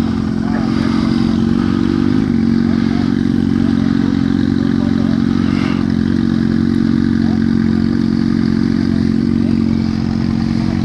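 Honda Shadow 750's V-twin engine running steadily near idle as the motorcycle rolls slowly, heard from on the bike, with a brief change in pitch about two seconds in.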